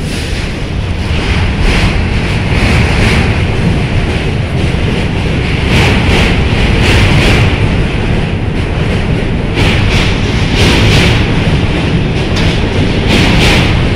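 New York City subway train running along the platform, a loud steady rumble of steel wheels on rail with repeated clacks from the wheels. It swells over the first couple of seconds, then holds.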